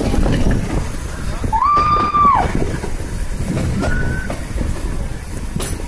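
Narrow-gauge toy train running, its carriage giving a steady low rumble and rattle on the rails. About two seconds in comes a brief high-pitched held tone, and a shorter, fainter one follows about four seconds in.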